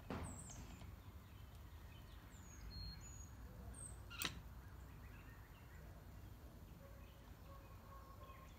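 Quiet outdoor ambience: scattered bird chirps over a low steady rumble, with one sharp click a little over four seconds in.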